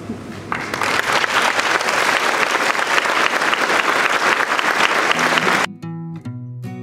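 Audience applauding, swelling in about half a second in, then cutting off suddenly near the end as strummed acoustic guitar music starts.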